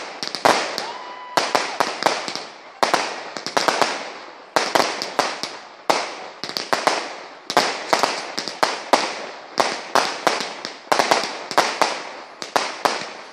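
Category 2/3 consumer fireworks bursting in the air in quick succession: a cluster of sharp bangs about every second and a half, each trailing off in a fading crackle.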